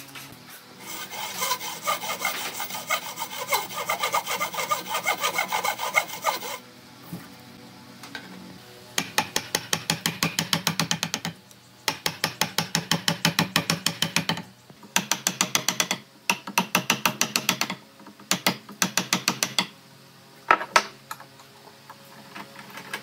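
A hand tool cutting a notch into a bark-covered log with fast back-and-forth strokes, about five a second, in a longer opening run followed by several short bursts with pauses between them. Near the end there are a couple of single knocks.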